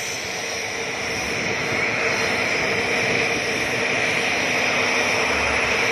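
Helicopter's turbine engines running on the ground, a steady whine and rush that holds level throughout.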